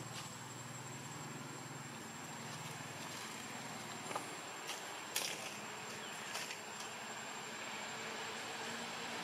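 Steady outdoor background of insects with a thin, steady high tone, a low vehicle hum that fades after the first few seconds, and a few short faint clicks near the middle.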